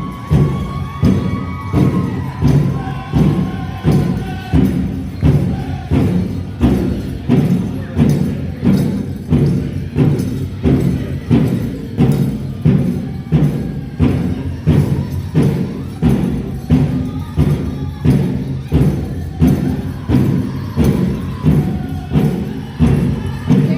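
Powwow drum group playing a prairie chicken dance song: a big drum struck in a steady beat of about 1.4 strokes a second, with sung voices over it in the first few seconds.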